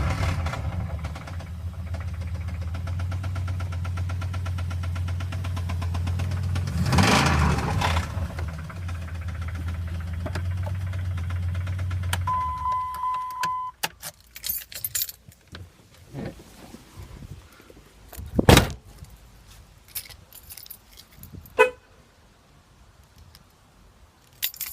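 2002 Dodge Ram's 4.7-litre V8 idling with a lifter tick, revving briefly about seven seconds in, then switched off about twelve seconds in. A steady electronic beep follows for about a second, then a few scattered clicks and knocks, two of them sharp.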